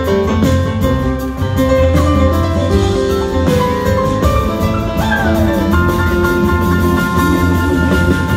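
Large rock band playing live, heard from the audience: drums, bass, guitar and a horn section, with held notes and some sliding pitches over a steady low beat.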